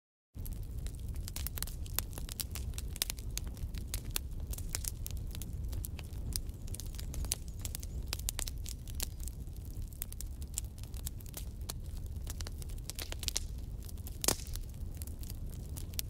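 Faint, irregular crackling and rustling over a steady low hum, with one sharper click about fourteen seconds in; no meows or voices.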